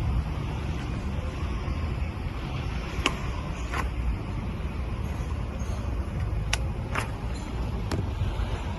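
Steady low rumble of road traffic, with five short, sharp clicks scattered through the middle and latter part.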